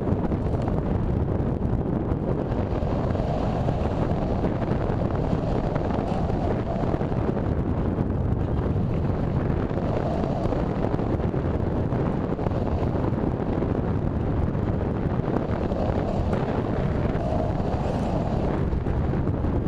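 Wind rushing over the microphone of a camera riding on an RC sailplane in flight: a steady, even rush of airflow noise, heaviest in the low end.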